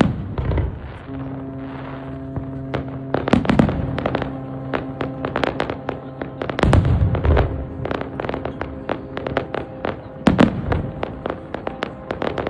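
Fireworks display: dense crackling of bursting shells, with four heavier booms spread across it. A steady low tone holds for several seconds through the middle.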